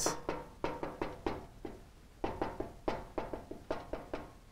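Dry-erase marker writing on a whiteboard: a quick series of short taps and strokes in small clusters as the symbols are written.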